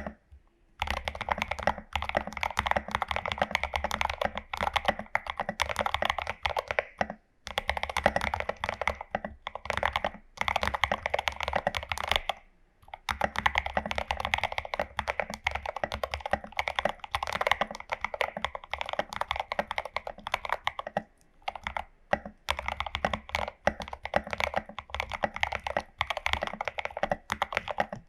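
Fast typing on a Glorious GMMK Pro mechanical keyboard with lubed and filmed Prevail Epsilon switches, tape-modded, under SA-profile keycaps: dense runs of keystrokes broken by several short pauses, at about 7, 10, 12 to 13 and 21 seconds in.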